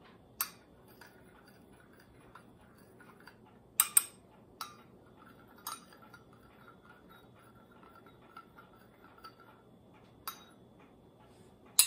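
Metal teaspoons stirring tea in porcelain teacups, with faint scraping and a handful of sharp clinks against the cups. The loudest are a pair of clinks about four seconds in.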